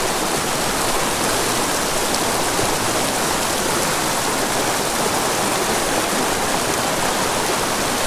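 Small creek running over rocks in shallow riffles: a steady rushing of water.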